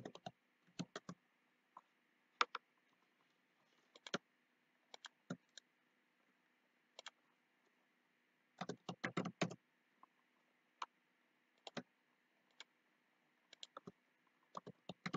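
Computer mouse clicks and keyboard keystrokes: scattered single clicks, with a quick run of keystrokes about nine seconds in.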